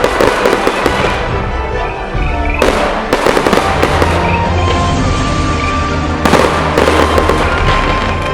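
Fireworks going off in three waves of dense crackling bursts, starting at the outset, about two and a half seconds in and about six seconds in, with music playing underneath.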